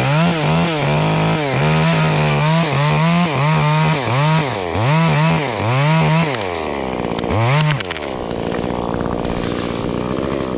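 Gas chainsaw cutting chunks of wood, the engine revving up and down about a dozen times in quick succession. In the last couple of seconds it runs steadier at a lower speed, then stops abruptly at the very end.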